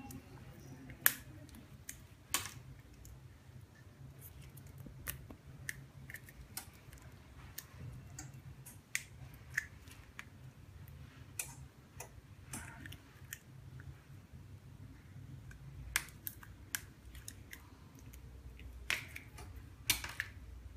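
Irregular sharp clicks and snips of a small blade cutting the plastic base frame off a cracked iPhone 6 Plus screen assembly, a few strokes louder than the rest, over a low steady hum.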